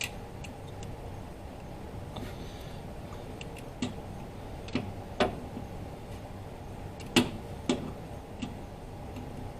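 Torque wrench set to 18 foot-pounds clicking as bolts are tightened: irregular sharp metallic clicks, the loudest few coming in the second half. A faint steady hum runs underneath.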